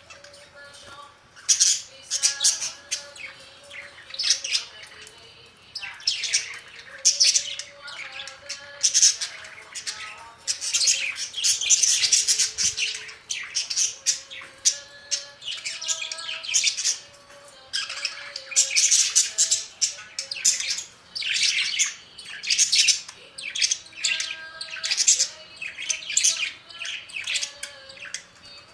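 Several budgerigars chattering, with chirps and squawks in short bursts every second or so.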